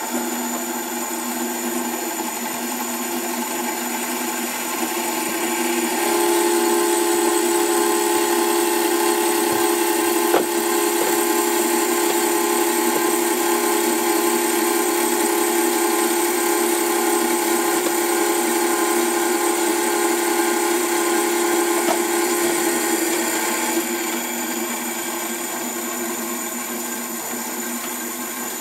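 Hans Schreiner metal-cutting band saw running, its blade cutting through clamped metal stock as the saw arm lowers. The cut gets louder about six seconds in and eases off a few seconds before the end, with one sharp tick about ten seconds in.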